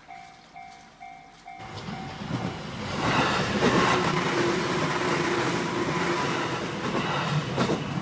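Japanese level-crossing alarm ringing its electronic bell about twice a second. From about one and a half seconds in it is drowned out by a JR 205-series electric commuter train rumbling over the crossing, with a few sharp wheel clacks over the rail joints.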